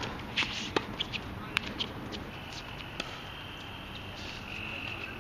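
Tennis ball being hit by rackets and bouncing on a hard court during a rally: a few sharp pops, the loudest at the start. A steady high buzz comes in at about two seconds.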